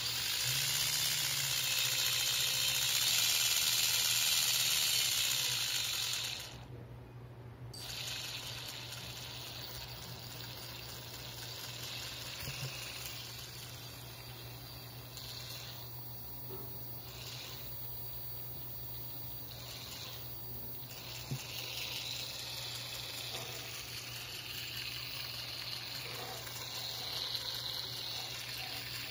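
A 2212 1400kv brushless outrunner motor spinning a small plastic spur-gear reduction gearbox at high speed: a steady whirring hiss of the gears over a low hum. It is loudest for about the first six seconds, drops sharply just after, and runs on more quietly.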